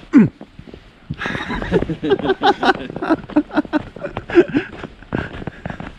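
Footsteps crunching through fresh snow in a quick, uneven run of short crunches, starting about a second in, with faint voice sounds among them.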